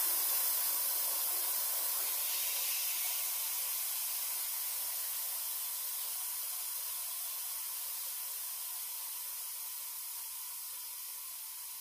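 Steam hissing out of a Pampered Chef Quick Cooker electric pressure cooker's release valve, held open with a wooden spoon for a quick pressure release. The steady hiss slowly fades as the pressure drops.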